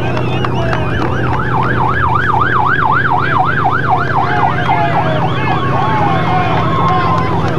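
Emergency-vehicle electronic siren in a fast up-and-down yelp, about three sweeps a second, changing to a steadier held tone for the last couple of seconds.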